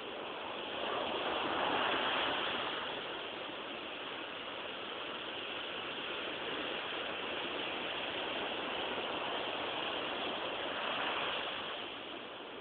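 Sea waves breaking and washing on the shore, a steady rushing that swells louder about a second in and again near the end as waves come in.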